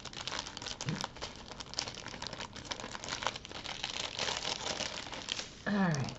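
Small plastic bags of diamond painting drills crinkling as they are handled and sorted. A brief falling voice sound near the end.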